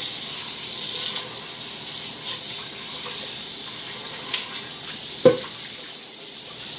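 Kitchen tap running steadily into a stainless steel pot and over rice in a strainer in the sink, rinsing the cooked rice to cool it. There are a few small clicks and one sharp knock about five seconds in.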